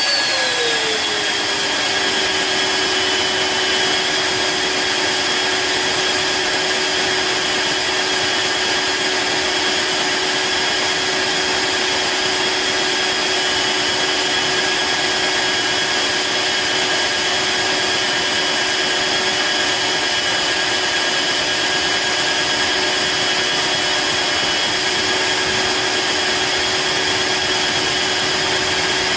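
Dreame G10 cordless wet-dry vacuum's motor running with a steady whine. About a second in, the pitch glides down as the motor settles to a lower speed, then it holds steady.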